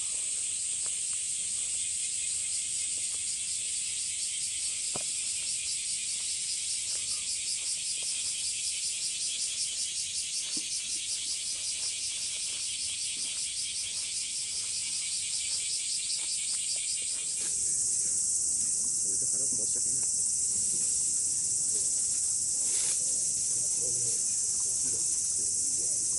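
A dense insect chorus, chirring with a pulsing rhythm. About two-thirds of the way through it changes abruptly to a thinner, higher steady trill.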